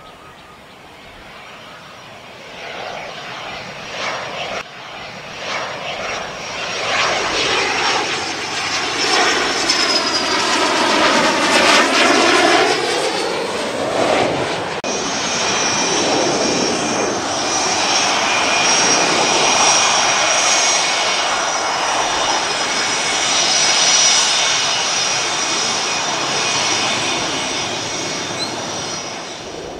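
British Aerospace Hawk jet trainer flying past on landing approach: its turbofan noise swells to a peak about twelve seconds in, with a hollow, sweeping, falling tone as it passes. From about fifteen seconds in, a McDonnell Douglas F/A-18D Hornet's jet engines give a steady high-pitched whine as it taxis.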